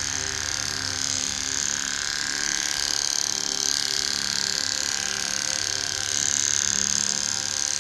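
Electric pet hair clippers running steadily, a constant buzzing hum with a hiss, as the blade shaves off a dog's thickly matted coat.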